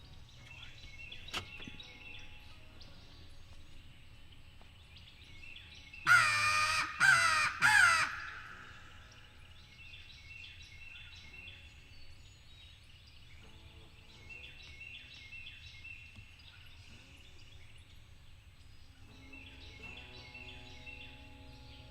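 A crow cawing three times in quick succession, loud and harsh, about six seconds in, over songbirds singing.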